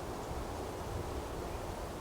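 Wind blowing steadily through forest trees, an even rushing noise with a low rumble underneath.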